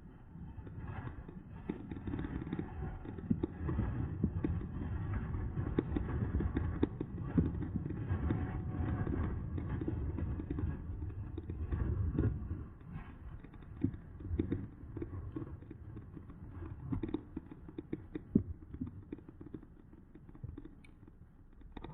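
Electric bike rolling over a rough, bumpy path: a dense rumble of tyres and frame with frequent rattling knocks as the front suspension takes the bumps. Heaviest for about the first twelve seconds, then lighter, with scattered single knocks.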